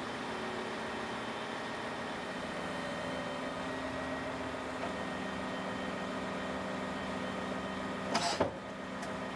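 Truck-mounted concrete pump running with a steady mechanical hum, its pitch shifting slightly a couple of times. A short sharp rattle sounds about eight seconds in.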